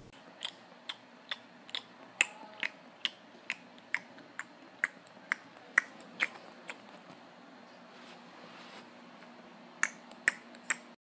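Fingers snapping in a steady rhythm, about two snaps a second, some fifteen in a row. After a pause of a few seconds, three more snaps come near the end.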